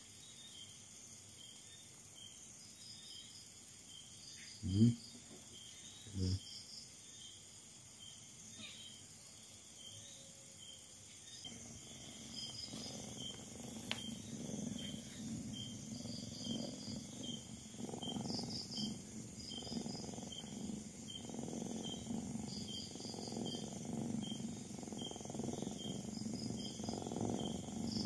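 Crickets chirping steadily in a regular rhythm, with two short rising calls about five and six seconds in. From about twelve seconds a mother cat purring up close, a pulsing low rumble, while her kittens nurse.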